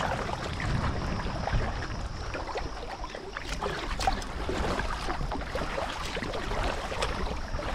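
Kayak paddling: paddle blades dipping into calm water and dripping, with water splashing and lapping along the hull in a steady wash of small irregular splashes.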